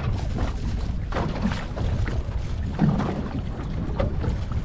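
Wind buffeting the microphone aboard a small fishing boat, a steady low rumble with irregular gusts, and water lapping at the hull.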